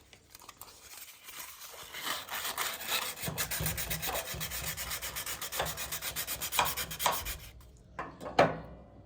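Hand rubbing strokes on the clutch's shaft key, quick back-and-forth scraping at about four strokes a second, with a few louder strokes near the end: the key is being cleaned up by hand so that it fits the keyway.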